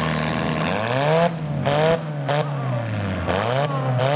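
A demolition-derby compact car's engine revving up and dropping back, about five times in quick succession, as its wheel spins in loose dirt.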